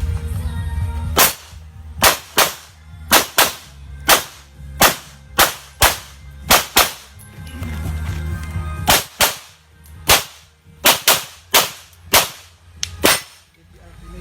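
A 9mm Glock pistol firing a string of about twenty shots, many in quick pairs, with a pause of about two seconds midway.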